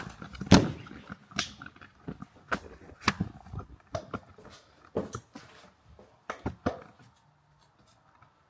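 A string of irregular knocks and taps from objects being handled, about ten in all, the loudest about half a second in, dying away after about seven seconds.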